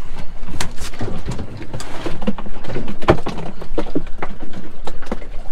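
Irregular knocks and thumps from a plastic cooler as its lid is opened and freshly caught fish are dropped inside. The loudest knock comes about three seconds in.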